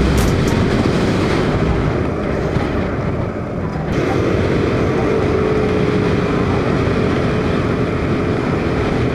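Motorcycle engine running steadily while riding, with wind and road noise on the microphone; the sound changes abruptly about four seconds in.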